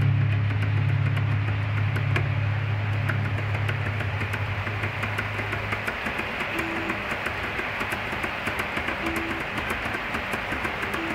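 Stepper motors of a homemade robot arm driving its joints: a steady low hum that cuts off about six seconds in, then a fast, even ticking with a few brief low tones.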